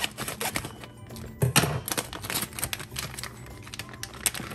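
A plastic zip-top bag crinkling as it is handled and snipped open with scissors, with a string of small clicks and rustles and one louder knock about one and a half seconds in. Soft background music underneath.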